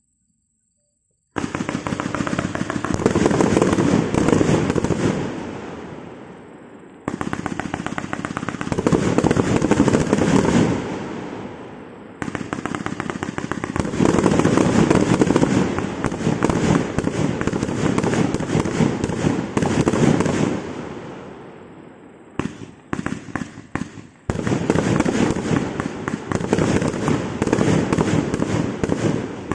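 A 177-shot consumer firework cake firing a rapid barrage of shots. It starts suddenly about a second and a half in and goes in several runs of quick-fire reports, each trailing off before the next run starts.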